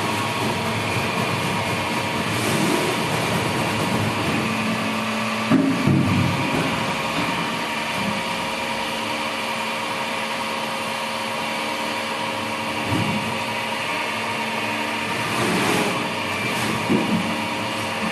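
A 5 ft rotary veneer peeling lathe running with a steady mechanical hum and whine. There are a few louder knocks about a third of the way in and again near the end.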